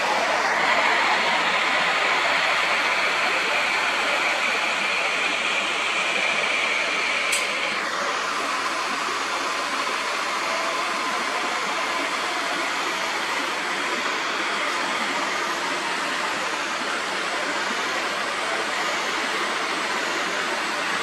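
Steady outdoor noisy hiss, with a high even drone through the first eight seconds that then stops, and a single sharp click a little after seven seconds.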